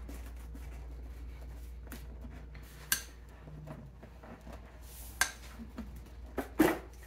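Scattered handling noise from a screwdriver and hands working loose a motorcycle's plastic air box and rubber intake boot: a few sharp clicks and clacks, the loudest near the end, over a steady low hum.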